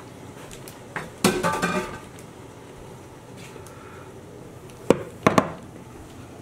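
A cooking pot knocking and clattering as it is handled: a click and a short clatter about a second in, then two or three sharp knocks near the end.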